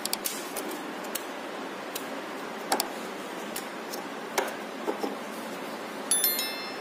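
A few scattered light clicks and taps over a steady room hiss, with a brief high ringing tone about six seconds in.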